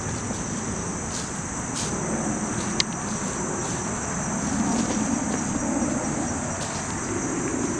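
Insects, crickets and the like, singing in the surrounding vegetation as a steady high-pitched drone. There is one sharp click about three seconds in.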